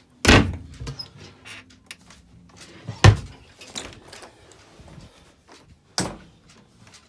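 Doors inside a small travel trailer being opened and banged shut: three loud knocks about three seconds apart, with lighter clicks and knocks of latches and handling between them.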